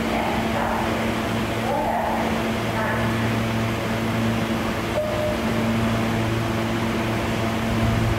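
NYC subway train running with a steady low hum over a noisy rumble.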